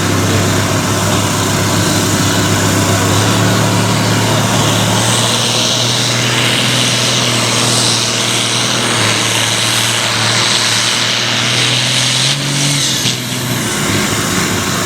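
Farm pulling tractor's engine running flat out under heavy load as it drags the weight-transfer sled down the track. A steady, loud engine note jumps up in pitch about twelve seconds in, then falls away near the end as the run finishes.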